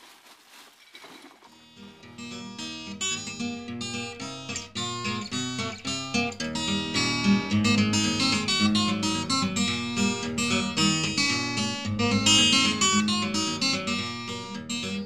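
Background music on acoustic guitar, many plucked notes, starting about a second and a half in after a short quiet stretch.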